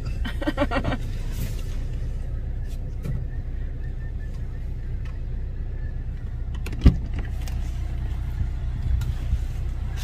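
Steady low rumble of a car's engine idling, heard from inside the cabin, with one sharp click about seven seconds in.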